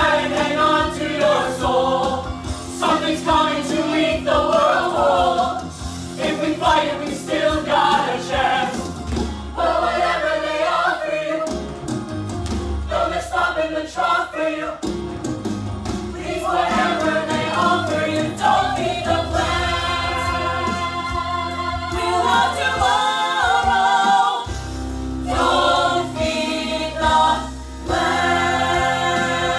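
A stage musical's ensemble singing in chorus over band accompaniment in a finale number, ending on long held chords.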